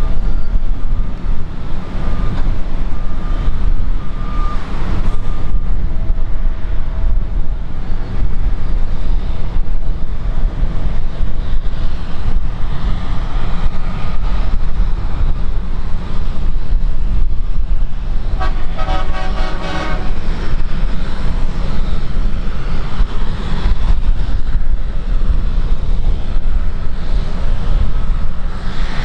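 Air Tractor turboprop crop duster's engine and propeller running as it taxis toward the microphone, mixed with gusty wind rumble on the microphone. A brief horn-like pitched tone sounds about two-thirds of the way in.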